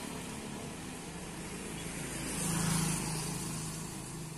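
A motorcycle engine passing on the road, getting louder to a peak about halfway through and then fading, over steady traffic noise.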